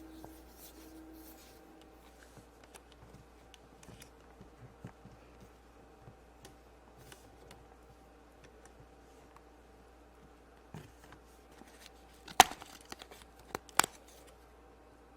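Quiet handling of soft modelling clay being shaped by hand: faint soft ticks and rubbing, then two sharp clicks near the end, about a second and a half apart.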